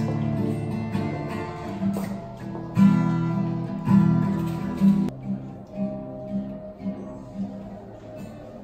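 Steel-string acoustic guitar strummed: hard strums for the first five seconds or so, then softer, lighter chords.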